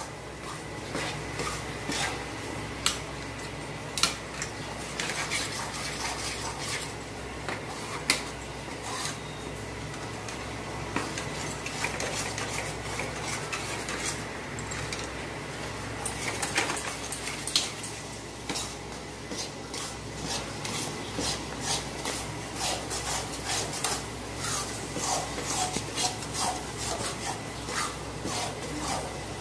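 Metal spatula scraping and clinking against a metal kadhai as gram flour is stirred continuously while it roasts in ghee on a low flame, with irregular scrapes and a few sharper knocks. The stirring keeps the besan from sticking and burning on the bottom of the pan.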